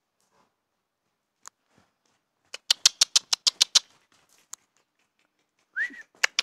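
A person making a quick run of sharp kissing clicks with the mouth, about ten at some eight a second, the sound used to urge on or call a horse. Near the end comes a short rising-and-falling squeak, then another run of clicks begins.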